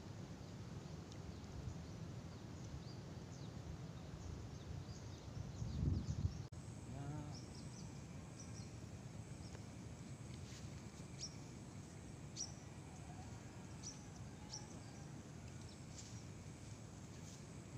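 Outdoor ambience: a steady low rumble of wind on the microphone that swells into a louder gust about six seconds in, then short high chirps of small birds scattered through the rest.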